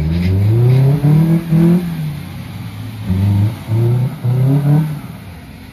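Maruti Gypsy's petrol engine revving hard in repeated bursts: one long rising rev, a brief dip, then several shorter revs. The 4x4 is stuck in deep snow and struggling to climb out.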